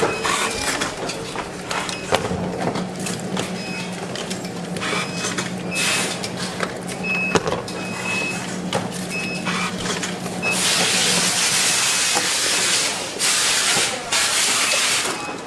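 Factory production-floor machinery: a steady machine hum with scattered clicks and several short high electronic beeps, then two long loud bursts of hissing a little over ten seconds in.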